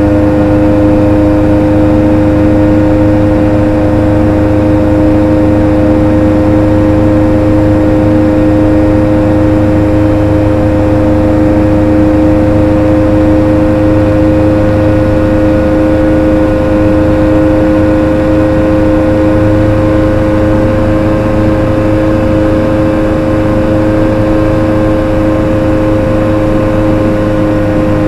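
ARV Super 2 light aircraft's engine and propeller running steadily in flight, heard from inside the cockpit as a loud, even drone with a strong steady hum.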